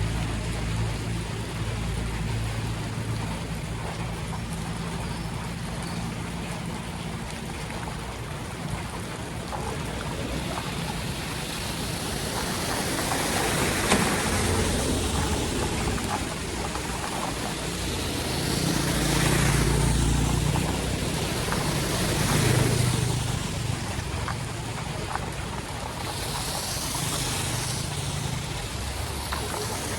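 Flood water rushing steadily on a street, with a few louder swishes that swell and fade around the middle and near the end.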